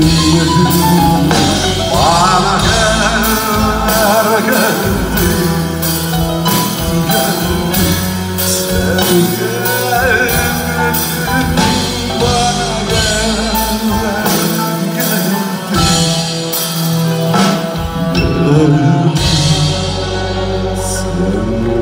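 Live band music from a Turkish song, with regular drum hits under a wavering melody line and some wordless singing.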